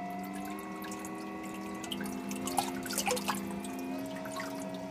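BlueRobotics T200 underwater thruster running submerged in a tub, driven forward: a steady electric motor whine that shifts pitch a few times, with churned water splashing and dripping, busiest about midway.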